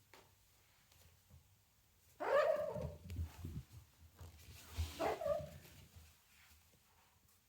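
A cat meowing twice, two drawn-out calls about two seconds apart.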